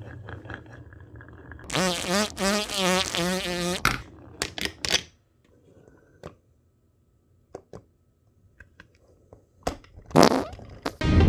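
Wooden marble run: a warbling, wavering tone for about two seconds, then a quick run of sharp clicks and a few scattered ticks as marbles knock along the wooden track, and a short swoosh near the end.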